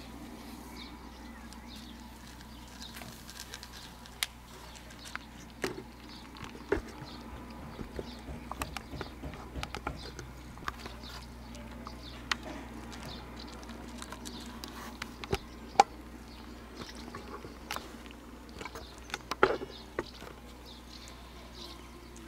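Kitten crunching dry kibble from a plastic bowl: irregular sharp crunches and clicks, a few louder ones in the second half.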